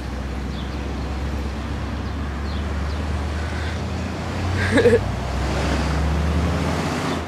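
Street traffic: a vehicle's low rumble swells and then eases off, with a short voice-like call about five seconds in.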